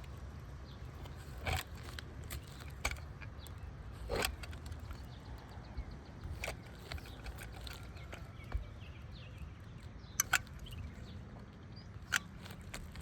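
Scattered knocks, taps and scuffs of a person working and shifting on an asphalt-shingle roof, over a low steady rumble. Two sharp taps come close together about ten seconds in.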